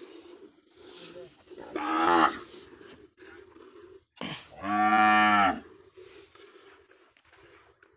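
Cattle mooing twice: a shorter call about two seconds in that bends down in pitch at its end, then a louder, longer moo around five seconds in.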